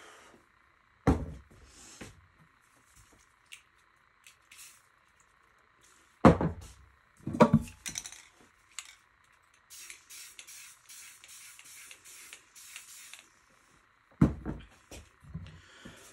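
An aerosol spray paint can hissing in a run of short quick bursts about ten seconds in, with several loud sharp thumps before and after.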